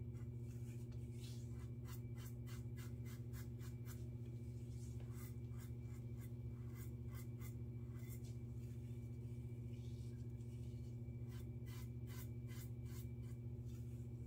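Double-edge safety razor (Yates with a Rapira Super Stainless blade) scraping through lathered stubble in quick short strokes. The strokes come in runs of several per second, with pauses between runs, over a steady low hum.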